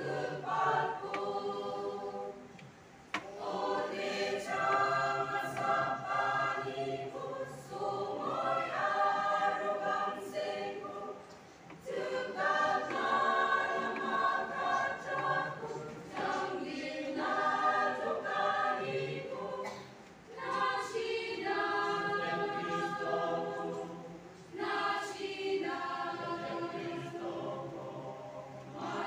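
Mixed choir of girls and young men singing together, in long sung phrases with short breaks between them.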